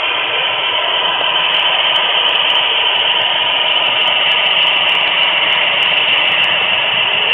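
Steady, loud rolling hiss and rumble of an HO-scale flat car's wheels running on the rails, picked up by a small camera taped directly to the car.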